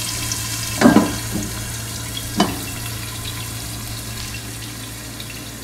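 Sliced onions frying in hot oil in a covered pan, a steady sizzling hiss that fades slightly, with two short knocks about one and two and a half seconds in.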